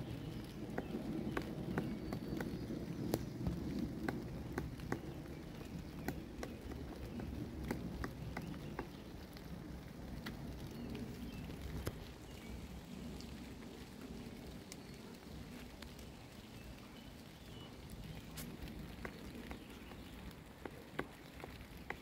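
Pileated woodpecker pecking at tree bark: irregular sharp taps, a few each second, over a low rumble that is strongest in the first few seconds.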